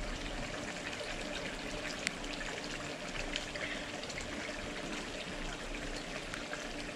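Water from an inlet pipe pouring and trickling steadily into a liner fish pond, with light rain starting to fall and a few small ticks from drops.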